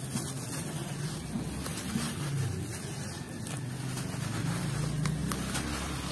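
Hands squeezing and crumbling wet, gritty sand in water in a plastic tub: wet squelching and grainy crumbling over a steady low rumble, with a few small sharp ticks.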